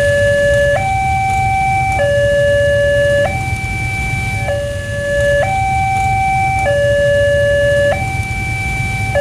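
Alkmaar-type railway level-crossing warning siren sounding its two-tone alarm: a lower and a higher steady tone swap back and forth about every 1.2 seconds, signalling that a train is approaching.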